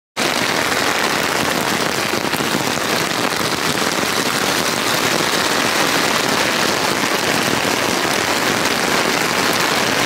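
Heavy thunderstorm downpour: rain falling steadily and hard on a tarp shelter.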